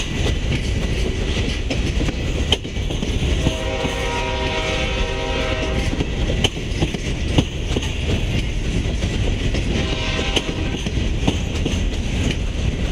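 Freight train of covered hopper cars rolling past with a steady rumble and occasional sharp wheel clicks over the rail joints. A train horn sounds for about two and a half seconds a few seconds in, and again more faintly and briefly about ten seconds in.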